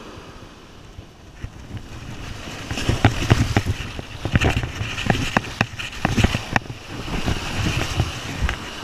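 Surf washing and splashing around a shark held by the tail in the shallows to revive it, with wind buffeting the microphone. About three seconds in the water grows rougher, with many sharp splashes over a low rumble.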